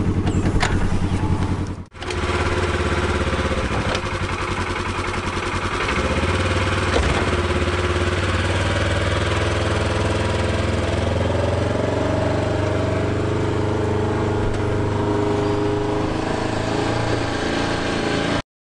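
Polaris Ranger utility vehicle's engine running steadily while it tows a mobile chicken coop. The sound drops out briefly about two seconds in and cuts off abruptly near the end.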